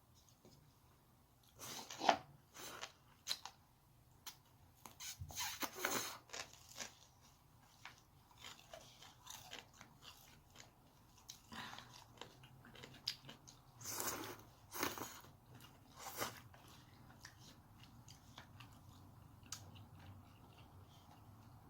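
A person biting into and chewing crunchy food close to the microphone, most likely a shrimp ball, with sharp crunches about two, six and fourteen to sixteen seconds in. It fades to small, quiet mouth clicks near the end.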